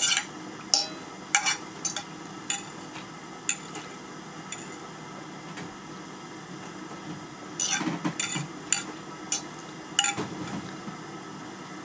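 Cutlery clinking and scraping against plates and bowls during eating: a dozen or so short, scattered clinks, busiest around eight seconds in.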